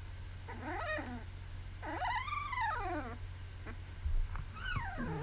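Irish Setter puppy whining and howling in three high cries: a short one that rises and falls, a longer one arching up and down in the middle, and one falling away near the end.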